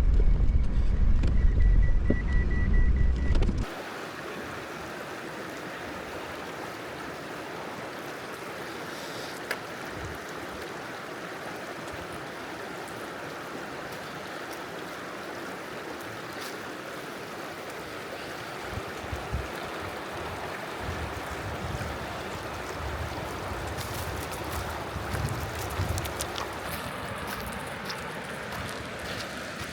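A loud low rumble cuts off about four seconds in. After it, a river flows and rushes steadily, with a few faint clicks.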